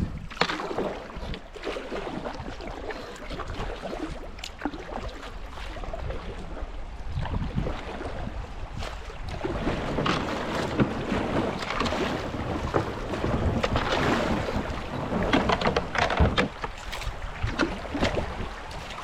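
Kayak running down a shallow creek: rushing, splashing water around the boat with irregular knocks and splashes from the paddle strokes, over a low rumble of wind on the microphone.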